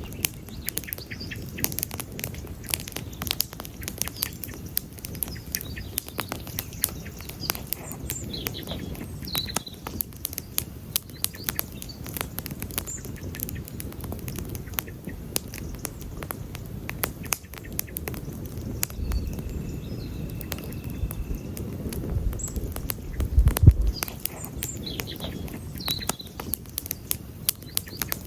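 Wood campfire crackling and popping steadily over the low rush of the flames, with one louder thump about three-quarters of the way through. Birds chirp faintly now and then.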